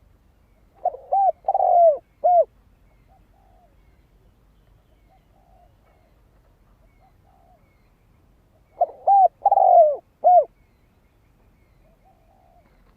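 Spotted dove cooing: two phrases of four notes each (two short, one longer, one short), each note an arched hoot, the first phrase about a second in and the second near nine seconds. Fainter coos can be heard between them.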